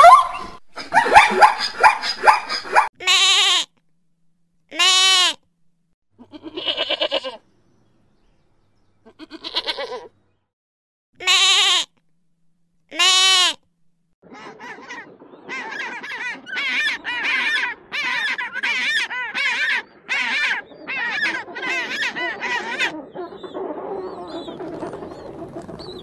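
Plains zebra calling: about six separate short calls, each rising and falling in pitch, a second or two apart. About halfway through, African penguins take over, braying in a long series of rapid short notes.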